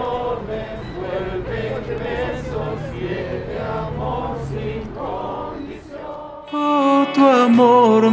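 Worship song with a group of voices singing a wordless, chant-like passage. About six and a half seconds in, the music grows louder with held sung notes.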